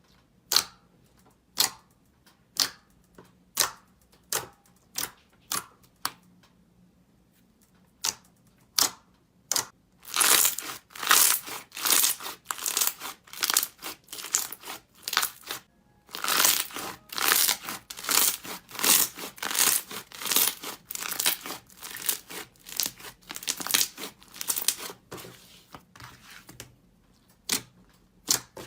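Slime being worked by hand. First come sharp pops about twice a second, then from about ten seconds in a dense run of crackling, crunching squishes, thinning back to a few pops near the end.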